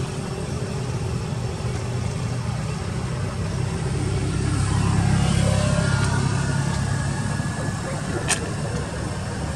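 A motor vehicle's engine rumbling past, swelling to its loudest about halfway through and then easing off, with a single sharp click near the end.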